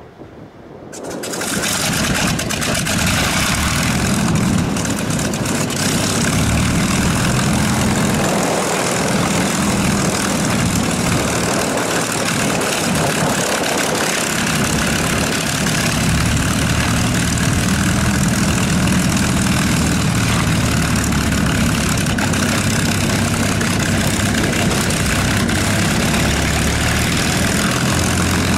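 The V-1650 Merlin V12 of a North American TF-51D Mustang starts about a second in, then runs steadily at idle.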